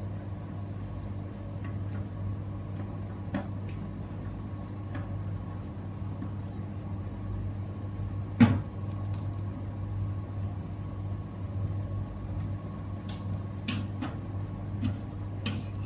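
Steady low machine hum with scattered small clicks and taps as a hard drive and tools are handled at the bench. There is one sharper knock about eight and a half seconds in, and a quick run of clicks near the end.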